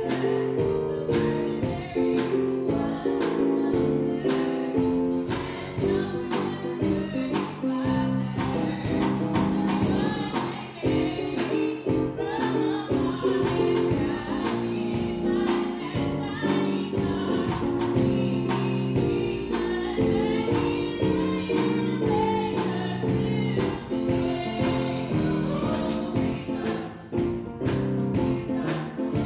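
Choir singing a carol with instrumental accompaniment, moving in steady, sustained chords.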